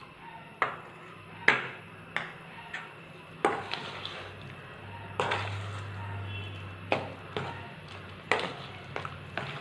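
Metal spoon stirring thick batter in a stainless steel bowl, knocking and clinking against the bowl about a dozen times at irregular intervals, each knock ringing briefly.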